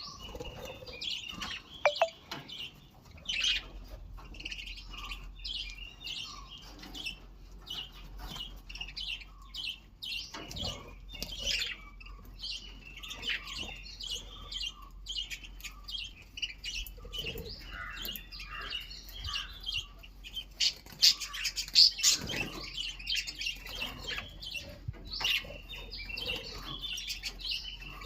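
A flock of small birds chirping continuously, many short high chirps overlapping, with occasional brief wing flapping.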